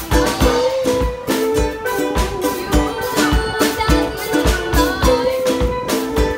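Live band playing an instrumental passage: steel pan notes over a drum kit keeping a steady bass-drum beat.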